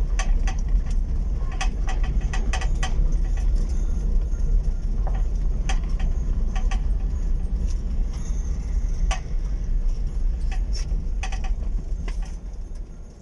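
Fiat Panda running at low speed, a steady low rumble with irregular rattling clicks from the car. The sound drops away about a second before the end.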